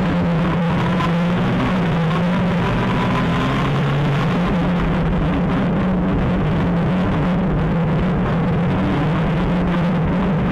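Textron Wildcat XX side-by-side's engine running hard under way, its pitch stepping up and down as the throttle and revs change, over a steady rush of noise.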